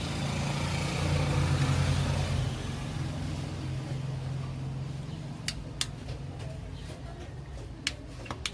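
A steady low mechanical hum, louder for the first two or three seconds and then easing off, with a few sharp clicks in the second half.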